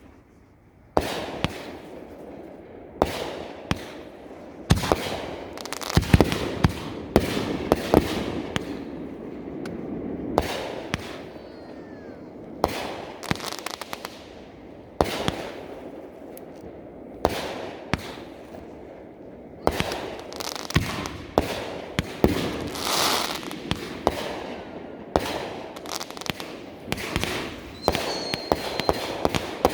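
A large consumer firework going off in a long barrage: sharp bangs every second or so, with crackling between them.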